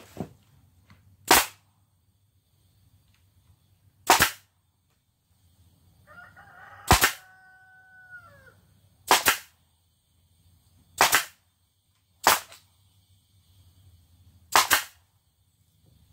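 Pneumatic nail gun driving nails into wood, seven sharp shots spaced two to three seconds apart. A rooster crows once, starting about six seconds in and falling off at the end of the call.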